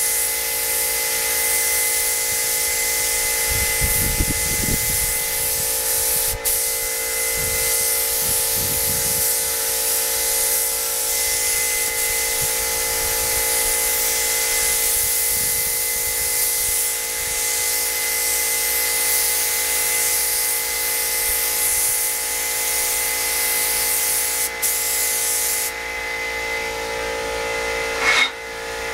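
Gravity-feed air spray gun hissing as it lays clear coat on a motorcycle fuel tank, over a steady motor hum. The spray hiss stops about 26 seconds in.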